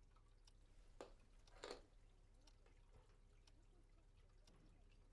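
Near silence: quiet room tone with two faint, brief sounds, one about a second in and one just under two seconds in.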